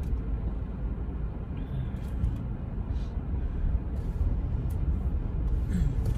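Steady low rumble of a car's engine and tyres, heard from inside the cabin as the car moves slowly through a parking lot, with a few faint ticks.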